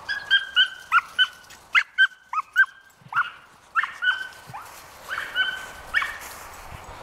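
Small dog barking in a rapid string of short, high-pitched yips, some falling in pitch, with a brief pause about three seconds in: excited barking during a chase game.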